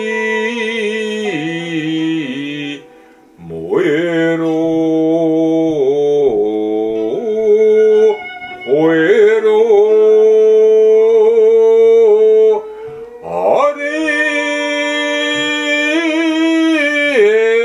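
A male voice chanting in shigin (kayō ginei) style over instrumental backing. It sings four long held notes, each sliding up into pitch, with short breaks between them.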